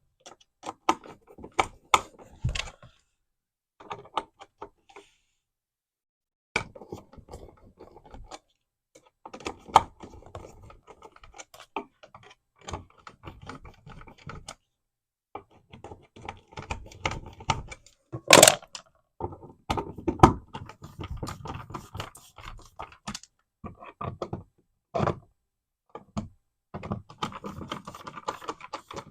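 Screwdriver driving a wall outlet's mounting screws into the electrical box: irregular small clicks, ticks and scrapes of metal on metal and plastic, in short runs with pauses between, and one sharp click about 18 seconds in.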